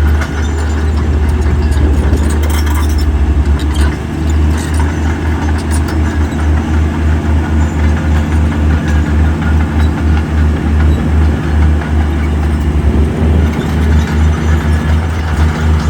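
Heavy diesel engine of earthmoving machinery running steadily with a pulsing low rumble, and a few short metallic clanks in the first few seconds.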